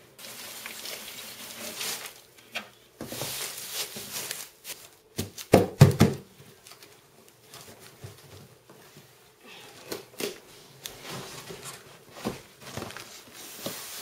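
Shredded paper pouring and rustling out of a plastic bin into a large cardboard box, with a few loud knocks about halfway through. Then cardboard and paper are shuffled and scraped as the packing is settled in the box.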